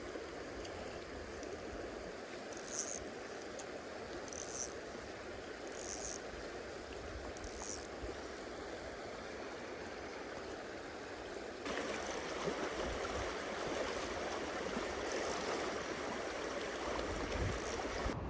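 Stream water flowing steadily. In the first half a short, high chirp repeats about every second and a half. Just before the two-thirds mark the water sound abruptly becomes louder and brighter.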